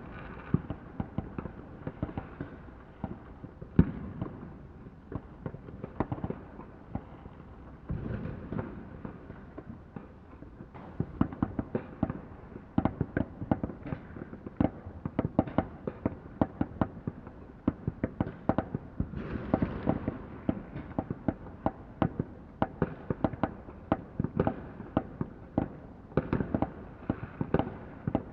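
Fireworks going off: an almost unbroken, irregular run of bangs and sharp cracks over a low rumble, thickest in the second half.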